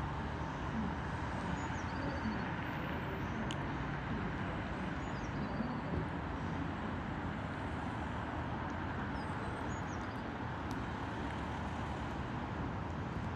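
Steady road-traffic rumble from cars idling and moving nearby, with a few faint high chirps.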